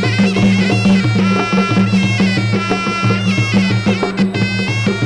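Traditional Khmer boxing ringside music: a reedy sralai oboe plays a wailing, wavering melody over a steady drum beat.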